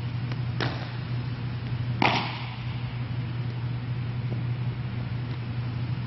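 A baseball smacks into a leather glove twice. The louder smack comes about two seconds in and leaves a short ring of echo in the hall. A steady low hum runs underneath.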